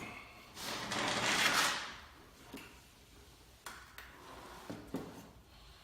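Handling noise while a lawn mower is being worked on: a rushing, scraping swell lasting about a second, starting just after the beginning, then a few light clicks and knocks.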